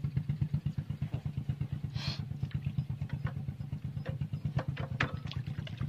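The single-cylinder diesel engine of a two-wheel walking tractor running steadily with a fast, even chugging. A brief hiss comes about two seconds in, and a few sharp clicks come a little before the end.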